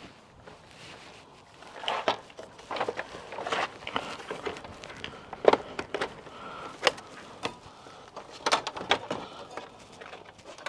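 Irregular plastic clicks and knocks of a headlight wiring connector being unplugged and the loose Audi A6 C7 headlight unit being worked free, with the sharpest knock about halfway through.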